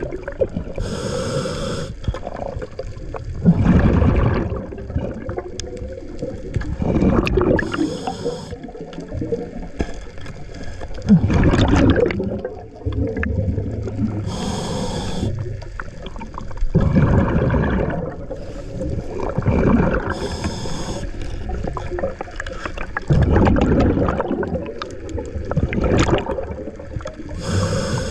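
Scuba diver breathing through a regulator underwater: a short hiss from the regulator on each inhale, then a rumbling, gurgling rush of exhaled bubbles. The cycle repeats steadily about every six or seven seconds, five breaths in all.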